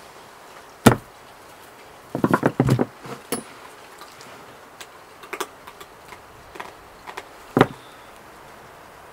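Raw whole chicken being cut up with a large knife on a wooden cutting board: a sharp knock about a second in, a quick run of five or six knocks a little after two seconds, scattered light taps, and another sharp knock near the end.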